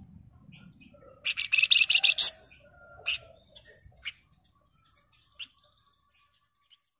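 Flamboyan songbird singing: about a second in, a loud, fast, tightly packed high trill lasting about a second, followed by a few single sharp chips spaced about a second apart.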